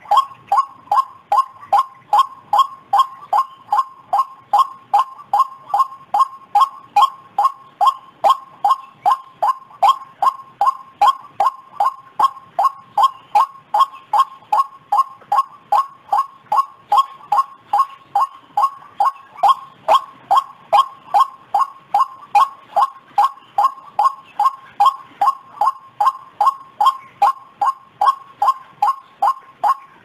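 White-breasted waterhen calling: a loud, unbroken run of short, clipped notes, each dipping slightly in pitch, repeated at about two and a half per second.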